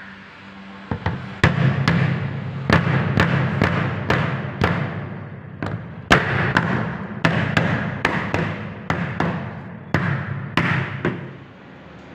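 Rubber mallet knocking on a hollow UPVC frame profile to tap it into place: a run of irregular hollow knocks, about two a second, for about ten seconds.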